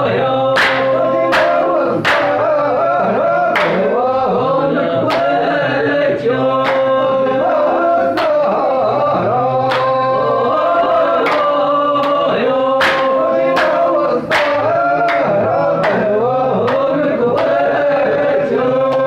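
Men singing a traditional folk song unaccompanied by instruments, the melody in long held, wavering notes, punctuated by sharp hand claps at uneven intervals.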